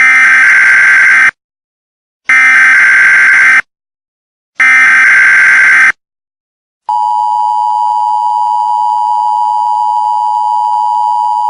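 Emergency Alert System alert opening: three short bursts of the SAME digital header, then the steady two-tone attention signal starting about seven seconds in.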